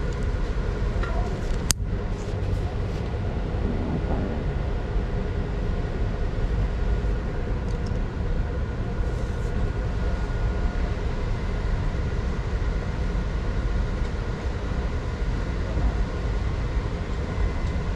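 Steady low rumble of a large store's background noise, with faint steady hum tones and one sharp click about two seconds in.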